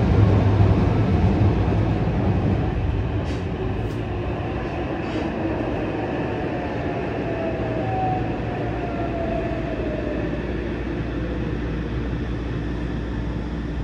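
Yokohama Municipal Subway 3000S-series train heard from inside the car as it slows into a station: wheel-and-rail rumble that is loudest at first and eases off, and from about halfway in the Mitsubishi IGBT-VVVF inverter's whine falling in pitch under braking.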